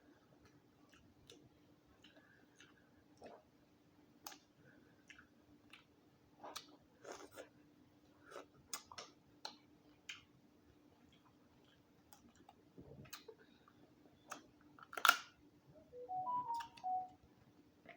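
Eating a boiled Dungeness crab: scattered clicks, cracks and crunches of shell being broken and picked, with wet chewing, the loudest crack about fifteen seconds in. A few short pitched notes sound near the end, over a faint steady hum.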